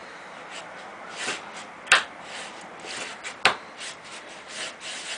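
Wooden bow drill kit being handled, two sharp wooden clicks, then a bamboo bow starting to stroke back and forth near the end, the Paulownia spindle rubbing in its Paulownia fireboard.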